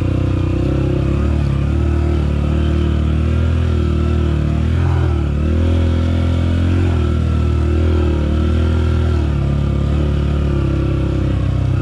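Dirt bike engine running steadily under throttle. Its note dips and climbs again a few times around the middle as the throttle is worked.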